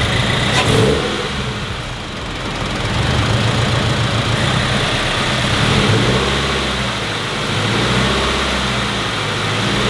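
A turbocharged Subaru BRZ's flat-four engine runs just after a turbo kit install, its speed rising and falling gently a few times under light revs. It is being run up to temperature to burp air out of the cooling system.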